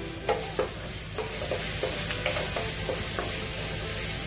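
Sliced onions sizzling in oil in a frying pan, stirred and pushed around with a wooden spoon that gives short light knocks against the pan, as maple syrup goes in to glaze them.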